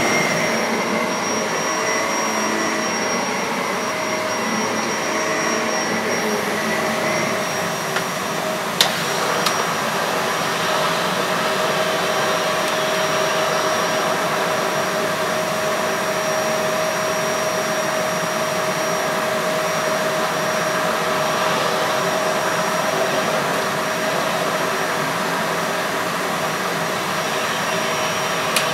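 AEG Electrolux Nimble bagless upright vacuum cleaner running steadily while vacuuming carpet. About nine seconds in there is a sharp knock, after which a steady hum tone stands out more clearly in the motor noise.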